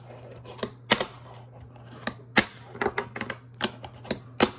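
Dynamic fingerboard complete with its 3D-printed deck clacking and popping on a wooden tabletop under the fingers: about a dozen sharp, irregular clicks, bunched closely together a little after the middle.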